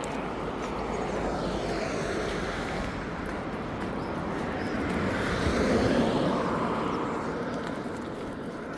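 Road traffic noise: steady tyre and engine hiss, with one vehicle passing that swells to its loudest about six seconds in and then fades.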